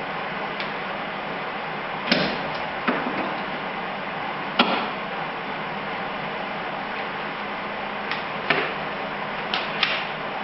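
A handful of short, sharp knocks and clacks, about seven, spread unevenly over a steady hiss.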